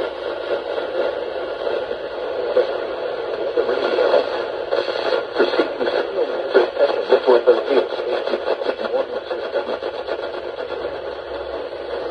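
Radio broadcast heard through heavy static: a steady, muffled hiss with an indistinct, wavering sound under it that grows louder and choppier about five to eight seconds in.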